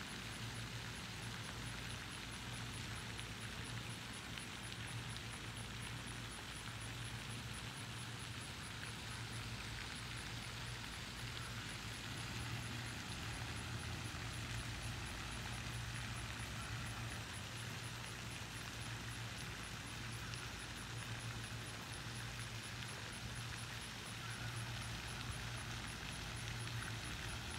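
Steady outdoor background noise: a low, even hum under a hiss, with a faint, rapid, high-pitched ticking throughout. No bird calls stand out.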